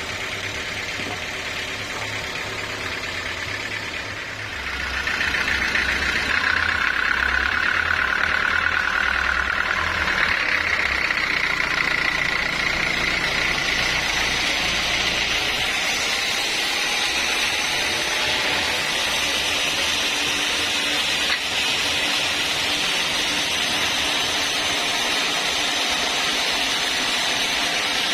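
Sawmill saw running, then cutting lengthwise through a log: the sound grows louder about four or five seconds in, with a high whine that rises in pitch, then settles into steady cutting noise.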